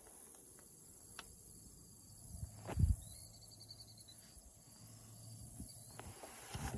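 Faint rural field ambience with a steady high insect drone. A single dull low thump about three seconds in is the loudest sound, with a few small clicks around it.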